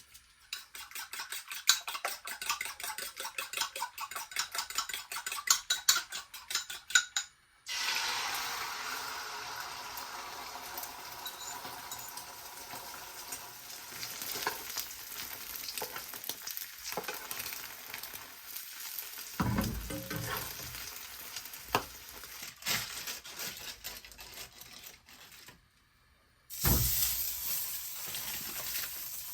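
Rapid scraping strokes for about seven seconds, then food sizzling as it fries in a pan, with a knock about twenty seconds in and the sizzle louder near the end.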